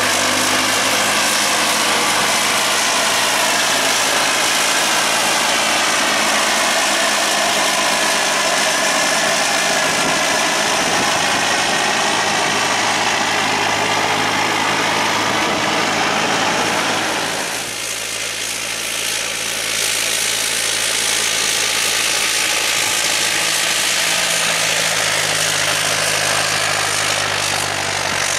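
Valtra 6400 tractor's diesel engine running under steady load as it pulls a reversible plough through wet, heavy soil, its pitch drifting slowly as it passes. About 18 seconds in, the sound cuts to another tractor engine working a tillage cultivator.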